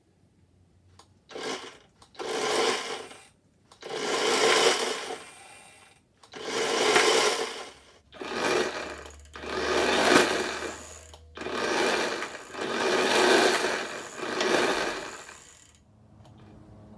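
Greenworks 40-volt cordless chainsaw's electric motor driving a bicycle's rear wheel through a chain, triggered in about nine short bursts. Each burst spins up and winds down over one to two seconds.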